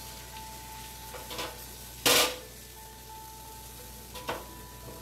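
Lamb chops sizzling softly in a frying pan, with one loud clank of cookware about two seconds in and a couple of lighter clicks before and after it.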